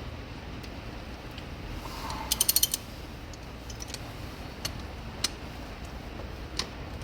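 Socket ratchet clicking in a quick run of about six clicks, then a few single clicks, as a 13 mm socket turns a front brake caliper bolt.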